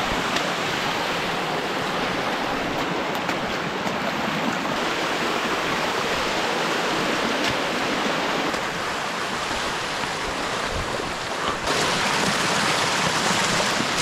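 Steady rushing of flowing water from a forest stream or cascade.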